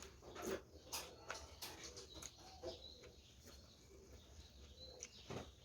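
Close-up chewing and mouth sounds of someone eating noodle salad: scattered wet clicks and smacks.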